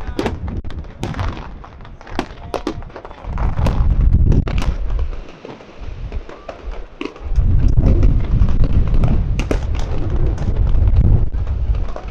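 Fireworks display: repeated sharp bangs and crackles of bursting shells, with two long stretches of deep rumbling booms.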